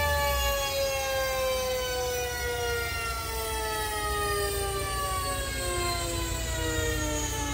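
Whine from the car's driveline and the dyno rollers coasting down after a pull: a steady tone with overtones, sliding slowly and evenly lower in pitch, over a low rumble.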